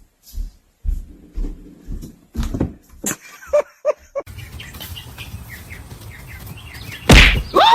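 A pet's short, squeaky calls among knocks and bumps, ending in one loud cry that falls in pitch near the end.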